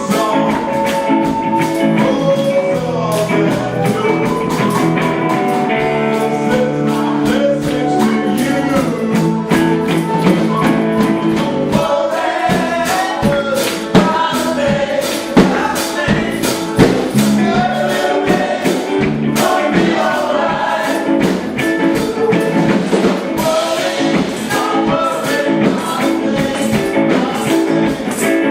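Music: a song with singing and a steady percussive beat.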